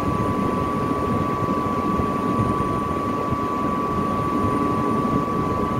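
Steady noise of running industrial machinery: a constant rushing hum with a steady high-pitched whine held throughout.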